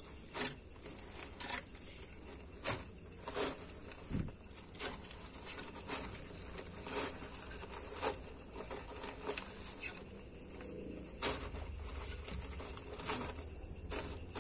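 Scattered light clicks and scrapes, irregular and roughly one a second, of a baby water monitor and a live mouse moving and struggling on driftwood and bark chips, over a faint steady high whine.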